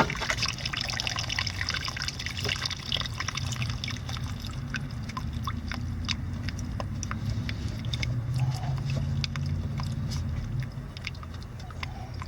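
Water trickling and dripping, the trickle fading after about three seconds into scattered drips and small clicks, over a steady low rumble.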